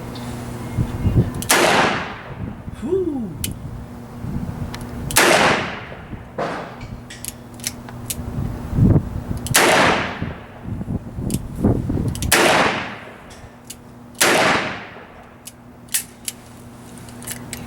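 Smith & Wesson 625 revolver firing .45 ACP: five loud shots a few seconds apart, each with a long echoing tail. Fainter sharp cracks come in between.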